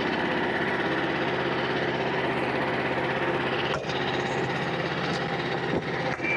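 Frontier OS27 portable band sawmill running, its small gas engine holding a steady speed as the band blade cuts through a white oak log, with a couple of brief knocks. The blade is worn out but still cutting straight.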